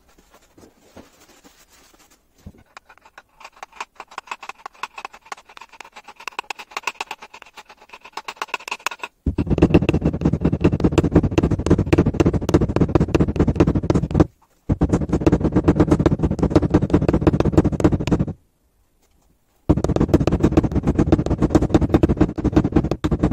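Nylon-faced hammer tapping a joint onto a car driveshaft. Light ticking at first, then about nine seconds in three runs of rapid, loud blows with short breaks between them.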